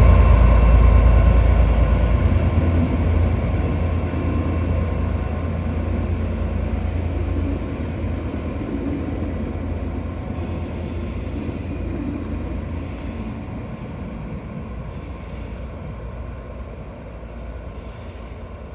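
Train running by and receding, its heavy low rumble fading steadily away.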